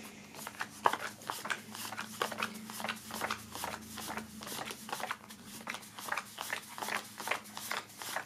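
Paper stickers being counted one by one and laid onto a pile on a wooden table: a quick, fairly even series of light snapping taps, roughly three a second.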